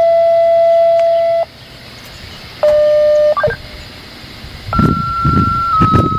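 Radio dispatch paging tones, steady single pitches stepping one after another: a long low tone that stops about a second and a half in, a shorter tone with a quick higher blip in the middle, then from about two-thirds of the way a higher tone that steps slightly lower. These are the kind of tones sent over the radio to activate outdoor warning sirens for a test. Low rumbling comes and goes under the last tone.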